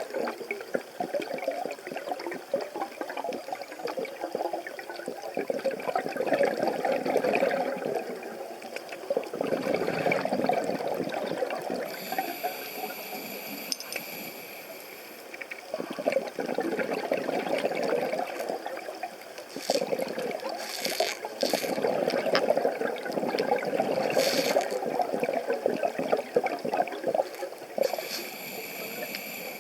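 Underwater sound of a red stingray digging in the sand: crackling, grinding noises that the diver takes for the ray feeding, like teeth grinding. These come in swells every few seconds under bubbling water, with a thin high whine twice.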